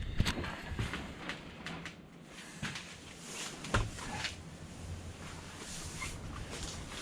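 Scattered clicks and knocks of parts and tools being handled, with a sharp knock just after the start and another about four seconds in, over a low steady hum.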